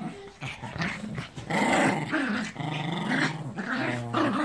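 Small dogs play-fighting, growling in low, wavering growls that run almost without break from about a second and a half in.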